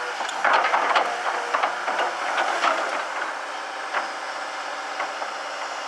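1985 Hitachi UH07 hydraulic excavator working, its engine running under a steady hiss-like noise with frequent knocks and clatter, thickest in the first second and a half.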